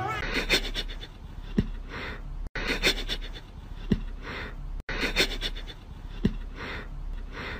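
Soft breathy puffs of sniffing or breathing, about one a second, with an occasional sharp click. The same short stretch of sound repeats three times.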